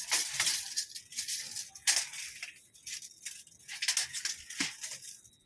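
Steel tape measure rattling and scraping in irregular strokes as its blade is pulled out and worked across a bed, with small clicks, dying away near the end.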